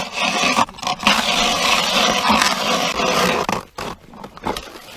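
Hand ice auger's blades grinding and scraping as they are cranked through lake ice, heaviest for a couple of seconds after the first second and quieter near the end.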